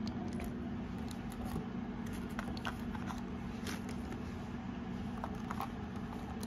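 Faint scattered clicks and rustles of AA batteries and a plastic bag being handled while loading a compact digital camera, over a steady low hum.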